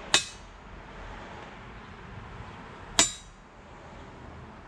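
Spring-loaded center punch snapping twice into a steel plate, about three seconds apart, each a sharp metallic click with a short ring, setting punch marks for drilled holes.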